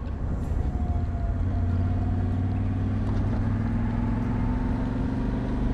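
Motorcycle engine running at a steady cruising speed, with wind noise over the microphone.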